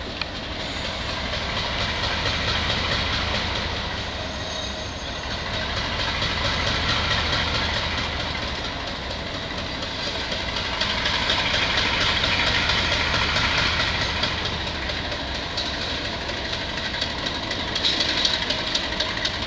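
Diesel locomotive running as it slowly moves a cut of tank cars along the track: a steady rumble that swells and fades several times.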